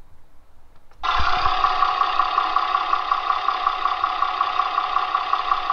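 Recorded clip of a Honda V6 engine idling with a fast, even ticking from the cylinder head, played back through computer speakers so it sounds thin, starting about a second in. The tick is the symptom in Honda's service bulletin for V6s that knock or tick at idle when warm: excessive rocker shaft clearance lets the rocker shaft rotate and make noise.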